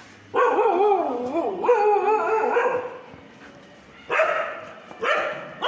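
Dog barking at a cow: a long, wavering, drawn-out bark lasting a couple of seconds, then two short barks near the end.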